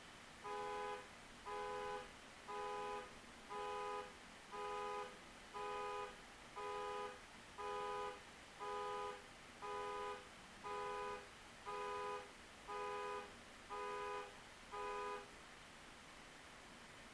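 Reversing alarm on a piece of construction equipment: a steady-pitched electronic beep repeated about once a second, some fifteen times, then it stops, a sign that the machine is backing up.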